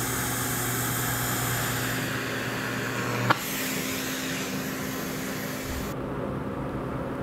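TIG welding arc running on the root pass of a stainless steel pipe joint: a steady hiss with a low hum. It stops with a short click about three seconds in, leaving a steady background hiss.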